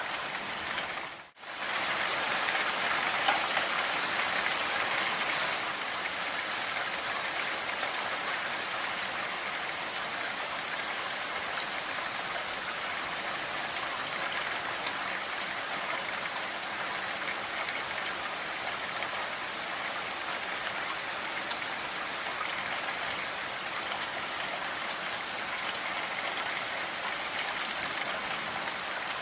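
Steady rain falling, an even hiss of many drops. It dips out briefly about a second in, then comes back at the same level.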